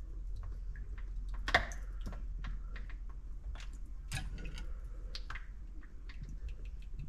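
Light, irregular clicks and taps of kitchen utensils against a bowl while dough is being mixed, with two louder knocks, one about a second and a half in and one about four seconds in.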